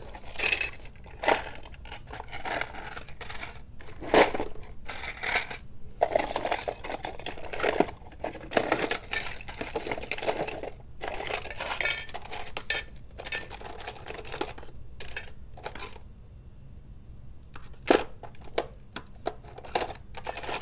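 A hand rummaging through a bin of loose spare model-locomotive parts: small plastic and metal pieces clattering and clinking against each other in irregular bursts, with a short lull near the end broken by one sharp clack.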